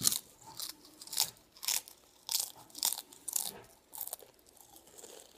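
Chili-lime tortilla chips being bitten and chewed, a crisp crunch about twice a second that thins out near the end.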